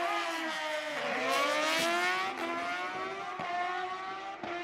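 Car engines revving at a drag strip, several engine notes at once. Their pitch falls to a low point about a second in, then climbs and holds, with a few sharp clicks near the end.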